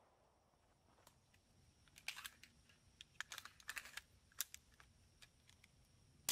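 Near silence, with a run of faint, irregular clicks between about two and four and a half seconds in, and a few more after.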